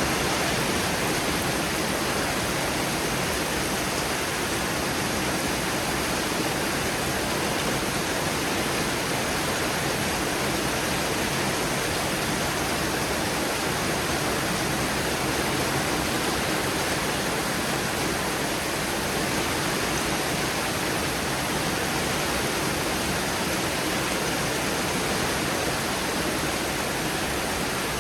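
Heavy rain pouring down steadily in a thunderstorm, an even rushing hiss with no thunderclaps.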